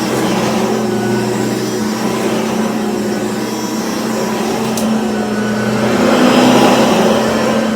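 Cordless stick vacuum cleaner running steadily, a constant motor hum under an even rush of air, swelling a little about six seconds in.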